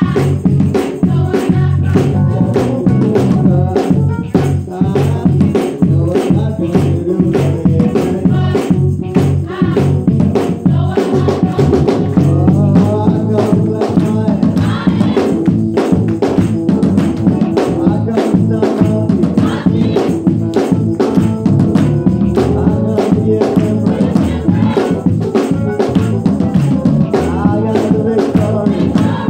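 Gospel choir singing with live drum kit accompaniment and a steady beat, loud throughout.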